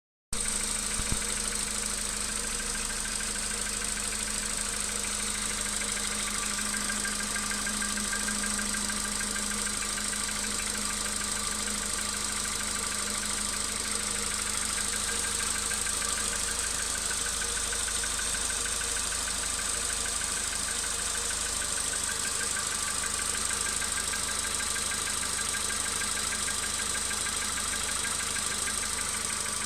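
Volkswagen Polo Sedan's 1.6-litre CFNA four-cylinder petrol engine idling steadily with a knock, at 112,000 km.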